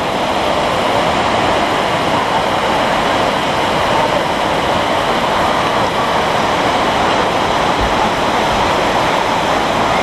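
Waterfall with many cascades pouring down a cliff face, a steady, even rush of water.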